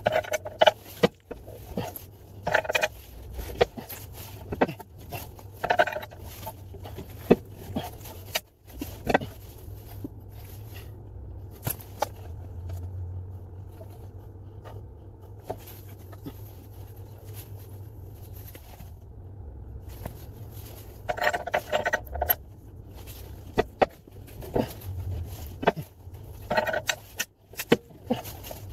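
Scattered metallic clinks and clicks as a ring spanner is fitted and turned on the forcing screw of a ball joint press tool, pressing a seized rear lower ball joint out of its hub carrier, over a steady low hum.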